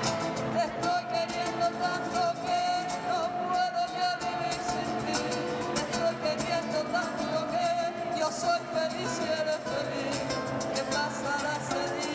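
Live band music in a Spanish rumba style: a woman singing the lead melody in long held phrases, with backing singers clapping along in rhythm.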